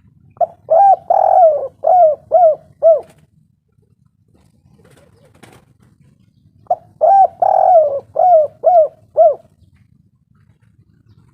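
Spotted dove (tekukur) cooing: two full call phrases about four seconds apart, each a run of about six rising-and-falling coo notes with one longer, drawn-out note near the start.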